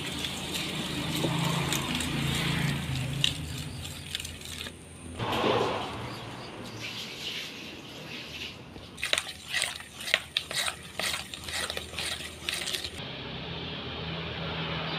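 A hand mixing a wet flour-and-water batter in a stainless steel bowl: squelching, with a run of sharp clicks and knocks against the bowl in the second half, over a steady low hum.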